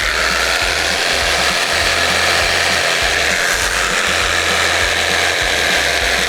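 A power tool running steadily on seat foam, a loud even hissing whir, as the foam is being flattened and shaved down.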